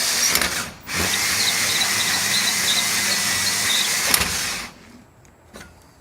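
Cordless drill running a hole saw through the fiberglass wall of a bus. It dips off briefly just under a second in, runs on, and then stops for good near the end as its battery goes flat.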